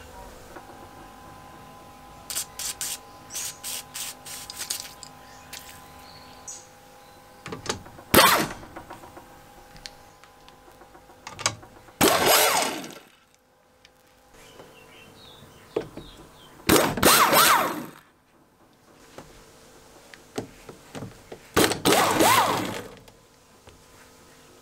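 Impact wrench hammering on the bolts of a lawn mower's steel side plate in four bursts, the last three about a second each, after a run of light metal clicks in the first few seconds. A faint steady hum runs underneath.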